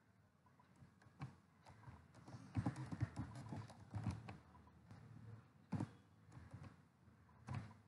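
Faint typing on a computer keyboard: irregular keystrokes, with a quick run of presses about three seconds in and a few separate, sharper key presses later.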